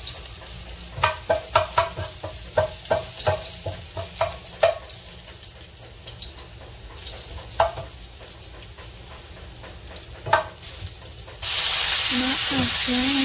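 Oil frying in a nonstick wok while a wooden spatula knocks and scrapes against the pan: a quick run of sharp taps over the first five seconds, two more later, over a faint sizzle. Near the end, food is added from a strainer and the oil suddenly breaks into a loud, steady sizzle.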